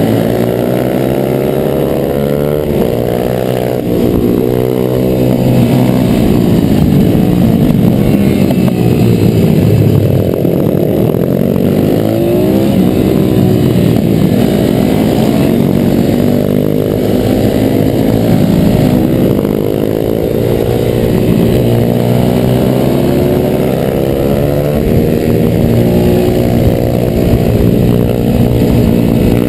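Pit bike single-cylinder four-stroke engines at racing speed, the on-board bike revving up and down as it shifts and brakes for corners, with other pit bikes close by. The engine note drops deeply around 10 seconds in and again around 20 seconds in before climbing back.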